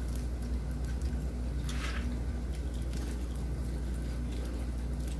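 Steady low hum in a small room, with faint chewing and mouth noises of people eating. A brief soft hiss comes about two seconds in.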